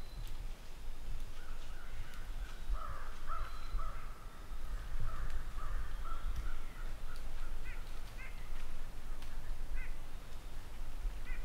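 Crows cawing: a run of harsh calls, then short separate caws repeating through the second half, over a low steady rumble.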